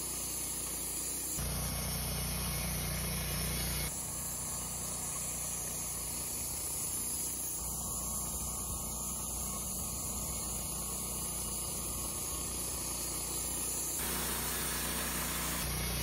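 Wood-Mizer LT15 portable band sawmill running steadily, its band blade sawing a Douglas fir log. The drone shifts abruptly in tone a few times.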